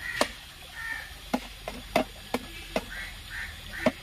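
A clear plastic bottle trap crackling and knocking against stones as it is pushed and wedged into place, in irregular sharp clicks, one near the end the loudest. Faint short calls repeat in the background.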